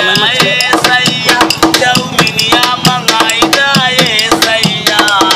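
A plastic water jug played as a drum with a stick and the bare hand: fast, steady rhythmic strikes, with a high gliding melody line over the beat.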